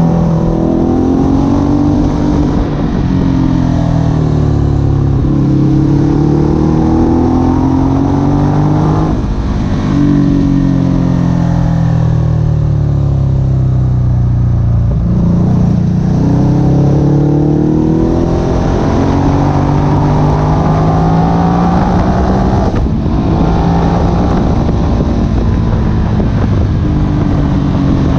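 Ducati Hypermotard SP's L-twin engine running loud, its pitch climbing and falling again and again as it revs up and eases off. There is a sharp click about 23 seconds in.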